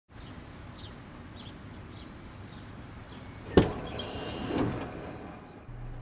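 Power sliding door of a BraunAbility-converted Toyota Sienna wheelchair van unlatching with a sharp clunk about halfway through, then sliding open on its motor with a whirring rumble for about a second and a half.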